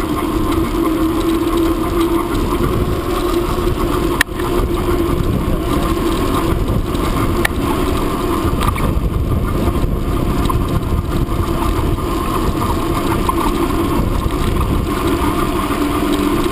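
Steady rumble and rush of a moving bicycle ride: wind buffeting the microphone and tyres on the path. A sharp click comes about four seconds in and another at about seven and a half seconds.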